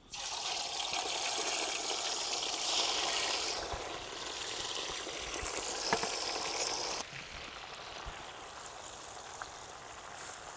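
Masala-coated chicken pieces deep-frying in a pot of hot oil: a steady sizzling hiss that drops to a softer sizzle about seven seconds in.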